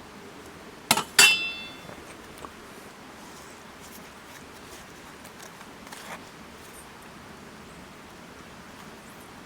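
Kitchenware knocked twice in quick succession about a second in, the second knock a ringing clink that dies away within about half a second, followed by a few faint clicks.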